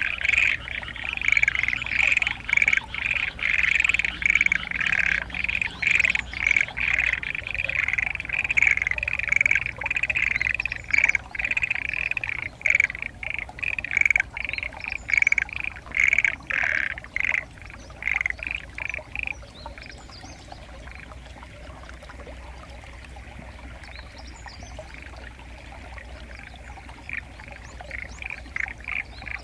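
A chorus of frogs croaking in dense, rapid pulses that stops abruptly about two-thirds of the way in, leaving a quieter steady background; a few calls start up again near the end. The recordist takes the frogs to be mostly black-spotted pond frogs (tonosama-gaeru), perhaps with other species among them.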